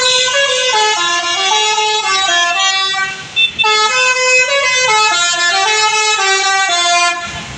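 Bus telolet horn, a multi-trumpet musical air horn, playing a loud stepped tune: the same phrase twice, with a short break about three and a half seconds in, stopping near the end.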